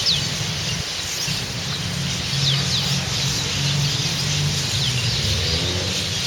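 Small birds giving short, high, downward-sliding chirps, scattered a few at a time, over a steady low hum.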